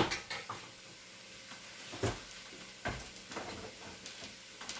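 Scattered knocks and clunks of things being handled and set down in a kitchen: one sharp knock at the start, then a few softer knocks spread through the rest.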